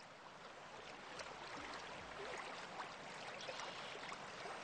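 Faint running water, a soft, even trickling and babbling.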